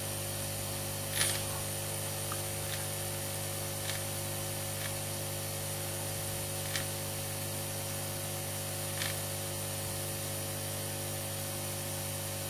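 Aoyue 968 hot air rework station running steadily: a hiss of blown air over a steady hum, with a few faint clicks spaced a couple of seconds apart. The unit is running in with its newly fitted heater element.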